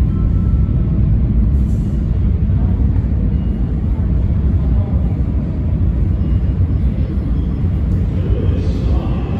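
New York City subway train approaching through the tunnel into the station, a loud, steady low rumble.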